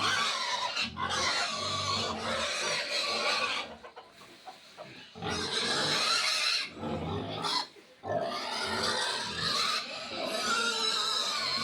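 Three-day-old piglets squealing shrilly and almost without pause, with two short breaks near the middle.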